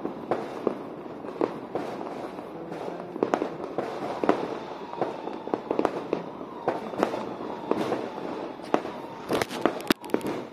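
Non-stop fireworks and firecrackers: many sharp bangs at irregular intervals over a continuous crackle, with a burst of louder reports close together near the end.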